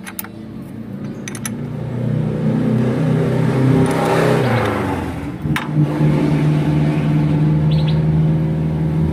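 A motor vehicle engine running, growing louder over the first two seconds or so and then holding steady, with a few light metallic clicks from a spanner on the fuel injection pump's stopper-bolt lock nut.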